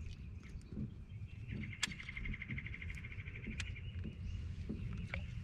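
Bird trill: a rapid run of repeated notes, about nine a second, lasting about two seconds, over a steady high-pitched buzz and a low rumble, with a few sharp clicks.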